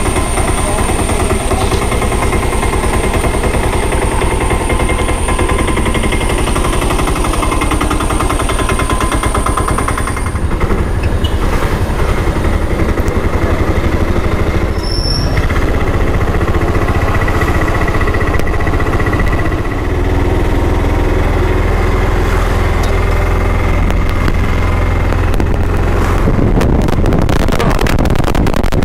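Auto rickshaw's small single-cylinder engine running with a rapid, steady putter, heard from inside the open cabin as it rides along.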